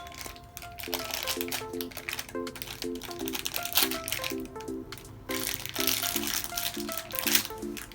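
Crinkling and rustling of a small plastic blind bag being torn open and handled, over light background music with a bouncy repeating melody.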